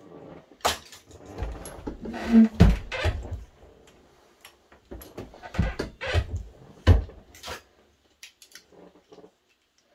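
A single-stage reloading press worked by hand to size a brass 6.5 Creedmoor rifle case. The case clicks into the shell holder, and the press gives metallic clunks as the handle and ram run through the stroke. The heaviest thumps come about 2.5 s and 7 s in, and a few faint handling clicks follow near the end.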